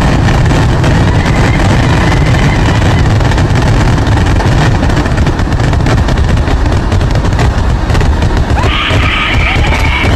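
A Kerala temple fireworks barrage ('vedikettu'): firecrackers going off in such rapid succession that the bangs merge into a loud, continuous crackle.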